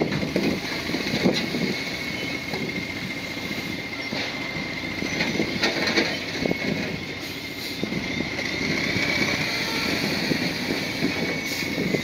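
Heavy earthmoving machine's diesel engine running under work, with a steady high whine over a rough rumble and a few sharp knocks.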